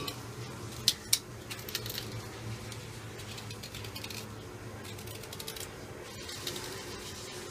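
A utensil clicking and scraping against the hard flesh of a black radish as it is gouged out: two sharp clicks about a second in, then a run of faint quick scraping strokes in the middle, over a steady low hum.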